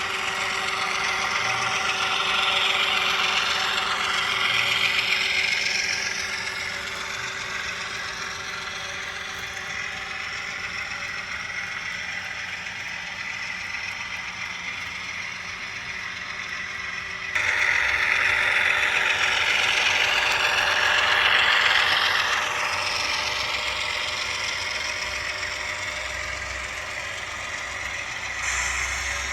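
An HO-scale model diesel locomotive running on track, with a steady engine sound and the rattle of its running gear and wheels on the rails. The noise swells twice, and changes abruptly about 17 seconds in.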